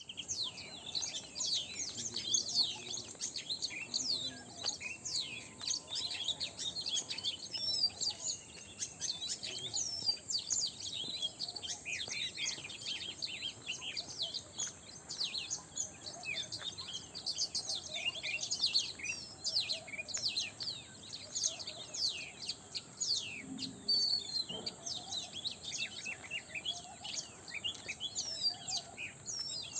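Many small birds chirping together in a dense, continuous chorus of short, quick high-pitched notes, many of them dropping in pitch.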